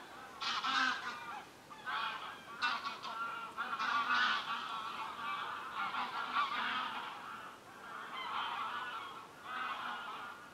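A flock of geese honking, with many calls overlapping.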